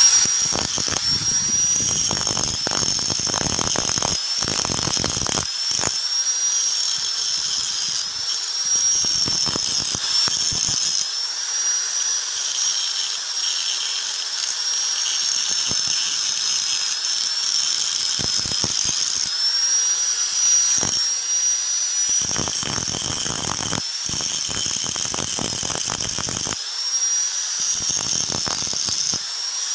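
Angle grinder running at full speed, its abrasive disc grinding the edge of a steel cleaver blade. A steady high whine that sags in pitch for a moment each time the disc is pressed into the steel.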